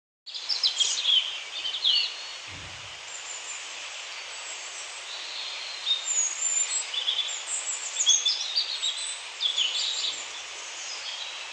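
Birds chirping over a steady background hiss, with a brief low thud about two and a half seconds in.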